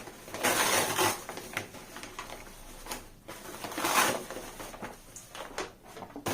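Wrapping paper and plastic wrap rustling and crinkling as they are pulled off a potted plant, in several bursts, the loudest about half a second in and about four seconds in.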